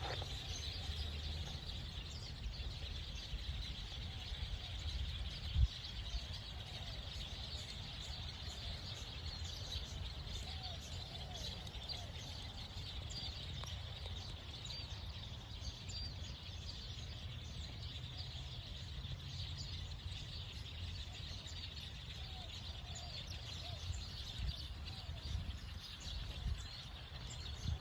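A large flock of birds calling together overhead in a dense, unbroken chatter of many chirps, with a low rumble underneath. A single brief thump about five and a half seconds in.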